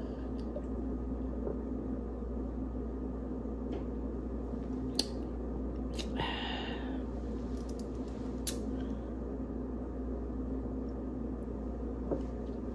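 Steady low room hum with a few faint clicks, and a brief breathy exhale about six seconds in.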